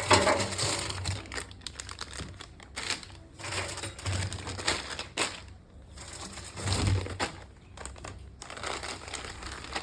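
Plastic packaging crinkling and rustling as it is handled, in irregular bursts with scattered light clicks.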